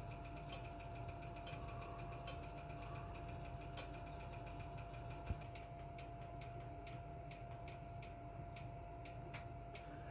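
Monitor 422 heater running with its burner lit: a steady low rumble and a thin steady hum, over a rapid regular ticking of about four clicks a second that becomes slower and more irregular about halfway through. One louder knock sounds about five seconds in.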